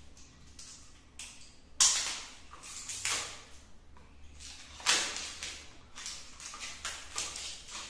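A roll of aluminium tape being opened and worked by hand: sharp tearing and crinkling rasps of the tape or its wrapper, loudest about two seconds in and again about five seconds in, with smaller crackles between.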